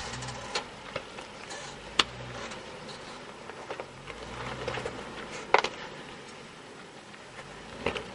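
Off-road 4x4s crawling over rock ledges at a distance: a faint engine hum that comes and goes, with four sharp clicks or knocks, the loudest about five and a half seconds in.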